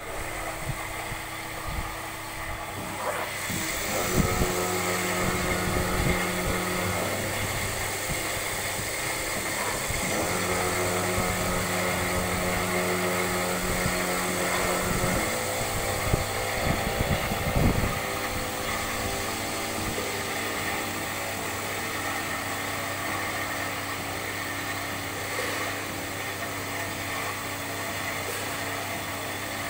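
Okuma & Howa ACT-20 CNC lathe running: a steady mechanical hum, joined twice for a few seconds by a higher whine that starts and stops, with a brief clatter of knocks just before the first whine and again a few seconds after the second.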